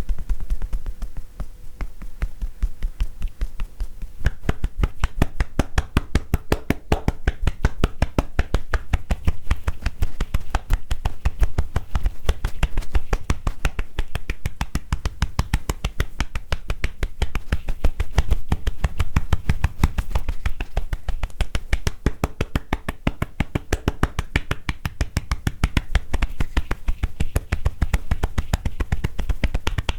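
Hands tapping on a person's body in tapotement massage (kouda-ho): a fast, even run of hollow, pattering taps that keeps up steadily throughout.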